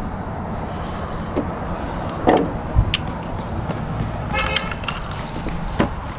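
Fishing tackle being handled: a few sharp clicks and knocks, and a brief metallic jingle about two-thirds of the way in that leaves a high ringing tone. A steady low rumble lies underneath.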